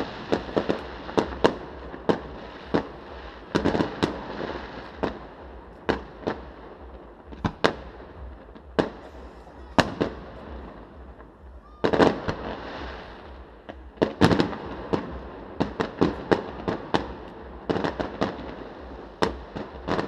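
Aerial fireworks shells bursting in irregular succession: dozens of sharp bangs, some coming in quick clusters with crackle.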